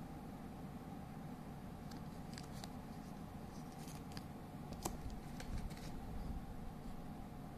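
Handling of a small clear plastic bag holding a sticker sheet: a few scattered light clicks and crinkles, a little over halfway through the loudest, over a faint steady hum.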